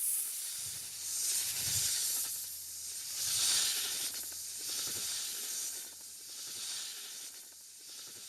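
Giant-snake hissing sound effect for Titanoboa: a run of long hisses, each swelling and fading about every second and a half, with a faint low rumble under the first few. The hissing dies away near the end.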